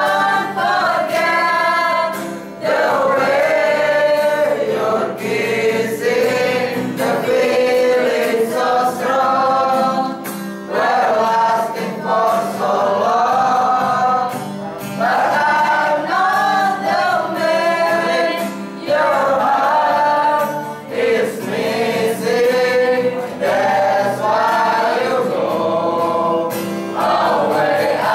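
Small mixed choir of young male and female voices singing a song together, in sung phrases a few seconds long with short breaks between them.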